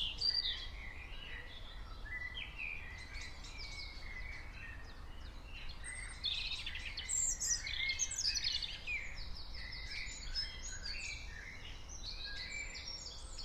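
Several birds chirping and singing in quick trills and sweeps, busiest at the start and again about six seconds in, over a steady low rumble.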